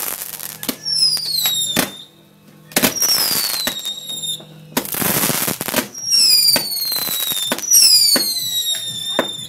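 Fireworks going off: hissing bursts and sharp cracks, with about four whistling fireworks whose whistles each fall in pitch over about a second.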